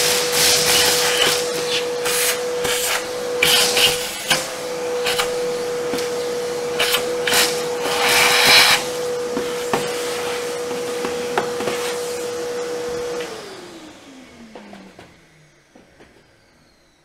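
Workshop vacuum cleaner running with a steady motor whine, its hose nozzle sucking leftover coffee grounds out of the bean hopper and grinder area of a Philips LatteGo espresso machine, with repeated hissing surges as grounds are drawn in. About 13 seconds in it is switched off and the whine falls away as the motor spins down.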